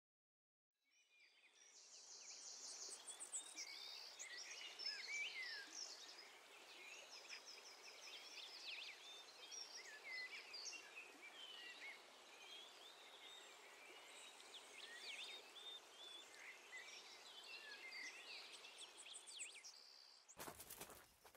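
Faint woodland ambience: many small birds chirping and twittering over a steady outdoor hiss, with a few rapid high trills.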